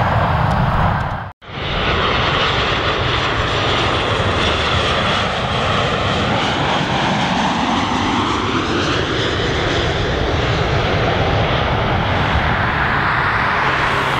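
Boeing 737 jet engines on landing approach: a steady jet noise with a sweeping tone that dips and then rises again as the airliner passes low. The sound cuts out briefly just over a second in.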